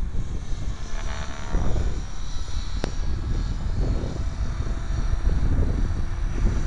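Align T-Rex 500 electric RC helicopter flying overhead: a high whine from its motor and rotor that shifts in pitch, over a low rumble of wind on the microphone. A single sharp click about three seconds in.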